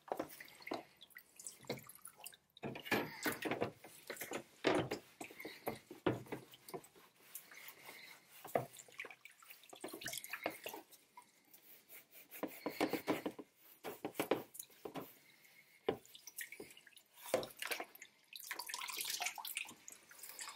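Water sloshing, splashing and dripping in a plastic tub as plastic case panels are scrubbed with a cloth in hot soapy water. The sounds come irregularly, with a louder stretch near the end as a panel is lifted and water runs off it.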